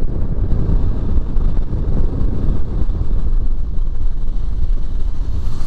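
Steady rush of wind and road noise on the microphone of a camera riding on a moving Hero Xpulse 200 4V motorcycle travelling along a wet road.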